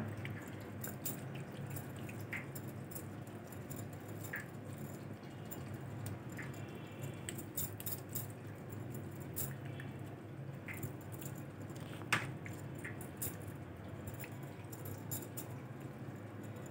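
Hands rubbing wet raw fish pieces in a steel bowl: faint squishing with scattered small clicks and taps against the bowl.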